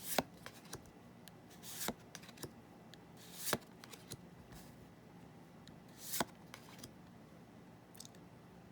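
A Magic: The Gathering booster pack being opened and its cards handled: several short, sharp crinkles and rips of the foil wrapper and card stock, with light ticks between them, settling down near the end.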